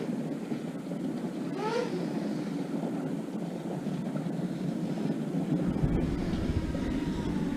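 FPV quadcopter motors running steadily, with two short rising whines as the throttle is pushed up, and wind buffeting the onboard microphone from about two-thirds of the way through.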